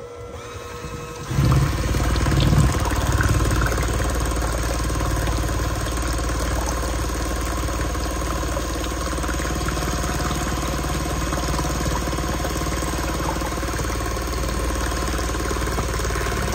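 Electric hand mixer running steadily, its wire beaters whirring through a thin, frothy flan batter of eggs, cream cheese and milk in a ceramic bowl. It gets louder about a second and a half in, then holds steady.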